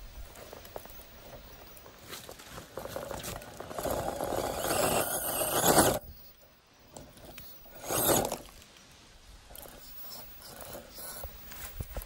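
Scale RC rock crawler with Hobbywing electronics climbing rock: a scraping, grinding sound of motor and tires working that builds for a few seconds and cuts off suddenly about halfway through, then one short, loud scrape about two seconds later.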